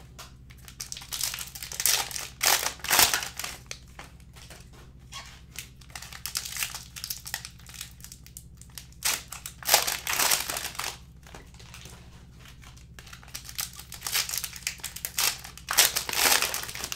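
Plastic wrappers of trading-card packs crinkling as multi-packs are handled, opened and the packs inside pulled out, in several bursts with short pauses between.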